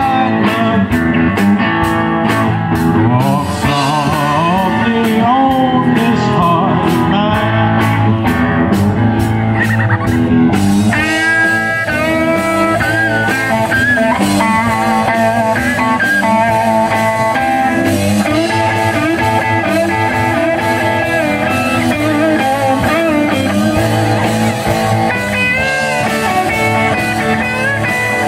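Live band playing amplified electric guitars over a drum kit, with a lead guitar line of bent, gliding notes from about eleven seconds in.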